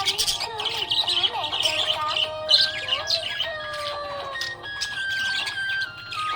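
Budgerigars chirping and warbling in quick, busy chatter over background music with a stepping melody.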